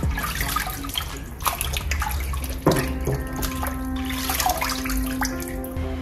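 Water sloshing and splashing as hands rub and turn a raw whole chicken in a sink of water, with background music running under it.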